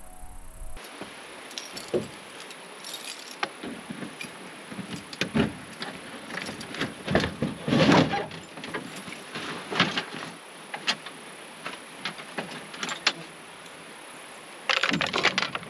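Gear being handled in an open hard-shell rooftop cargo box on a roof rack: an irregular run of knocks, clicks and rattles of plastic and metal. The loudest clatter comes about eight seconds in, and a busy stretch comes near the end.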